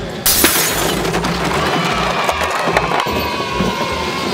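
A crash sound effect with a splintering, breaking noise that sets in suddenly just after the start and carries on, laid over background music with a steady beat, as a ride-on toy truck runs into a wall of big plastic toy blocks.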